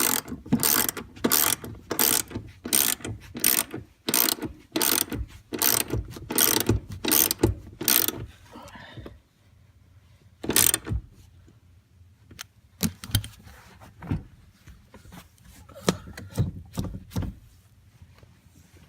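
Hand ratchet wrench clicking in quick back-and-forth strokes, about two a second for the first eight seconds, as a seat-bracket mounting bolt is run down. After a pause comes one more stroke, then scattered lighter clicks.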